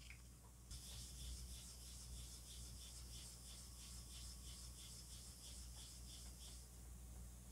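Cloth rubbing fine polishing compound over a painted plastic model car body: faint quick back-and-forth strokes, about three a second, that stop near the end.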